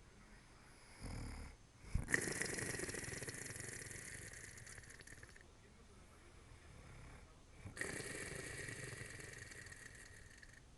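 Snoring in slow, long breaths: a short snort about a second in, then a drawn-out snore of a few seconds, and another starting near eight seconds in.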